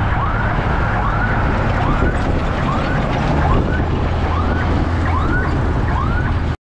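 Loud road traffic rumble with a siren yelping in quick, repeated rising-and-falling sweeps. Everything cuts off suddenly near the end.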